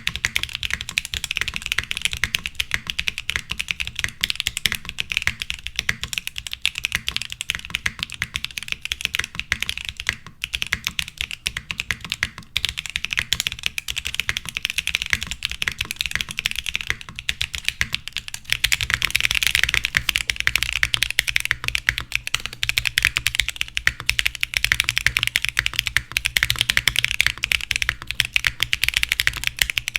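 Continuous fast typing on a Mode Sonnet custom mechanical keyboard with Gateron Beer light tactile switches, GMK Grand Prix keycaps and a POM plate. The keystrokes grow louder and fuller from a little past halfway.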